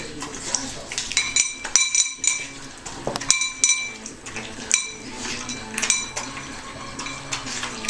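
Repeated metal clinks and rattles, like dishware being knocked about. The same ringing tones sound with each knock, at irregular intervals.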